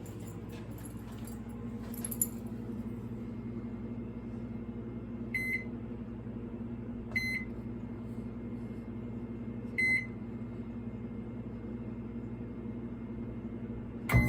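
Microwave oven keypad beeping as it is set: three short beeps a couple of seconds apart and another near the end, over a steady low electrical hum.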